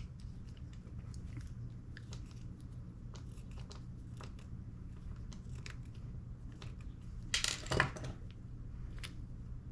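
Small parts of a gas blowback airsoft rifle's nozzle assembly being handled: scattered light clicks and taps, with a louder scraping rustle lasting about half a second roughly seven seconds in and a sharp click a second later, over a low steady hum.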